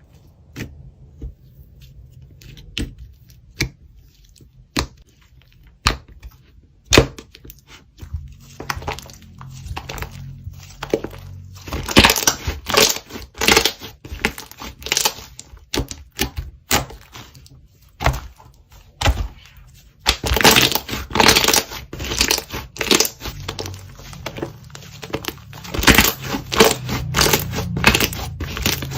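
Yellow slime being squeezed and stretched by hand, giving irregular sharp clicks and pops that come sparsely at first and grow denser and louder about halfway through.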